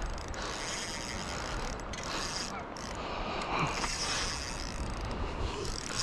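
Fishing reel clicking and whirring, its drag and gears working as a hooked striped bass runs and pulls line.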